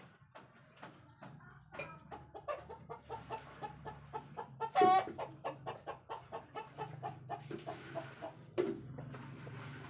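Chickens clucking in a quick run of short repeated notes, several a second, with one louder squawk about halfway through.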